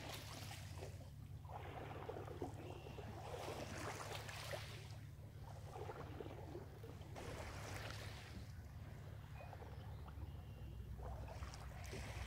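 Small lake waves washing in over a pebble shore, swelling and fading every few seconds, over a steady low rumble.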